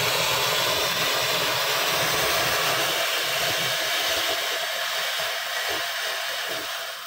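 Orange Crush ground fountain fireworks spraying sparks with a loud, steady hiss, easing off slightly near the end.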